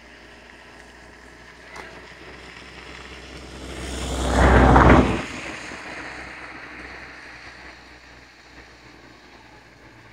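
3D-printed multirotor drone in flight, its propeller noise swelling into a loud rush with low rumble as it comes close, peaking about five seconds in and then dropping off sharply.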